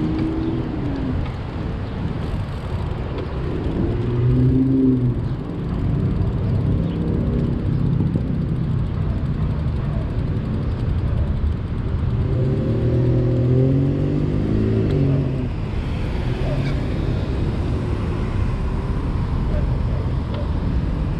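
Motor vehicles passing on a city street, their engine notes rising and falling two or three times over a steady low rumble.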